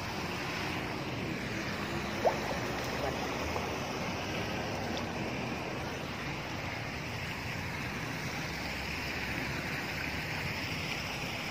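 Steady rushing water noise of a shallow river, with one short sharp click about two seconds in.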